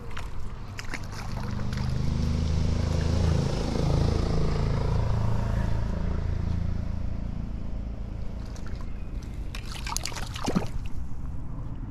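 A motor vehicle's engine rumbling low nearby, swelling about two seconds in and fading away after a few seconds. Near the end comes a brief splash of water at the river's edge.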